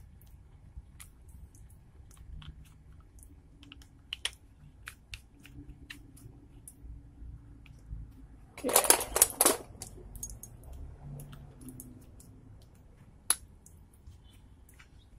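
Gloved hands handling a 3D-printed resin bullet mold and its cast lead bullet: scattered small clicks and scrapes, a quick run of loud rattling clicks about nine seconds in, and one sharp click near the end.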